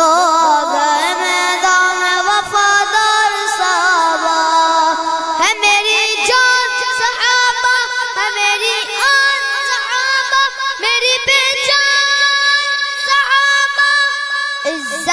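A boy's solo voice singing a devotional Urdu kalam into a microphone, in long drawn-out, wavering notes, with the melody climbing higher about halfway through.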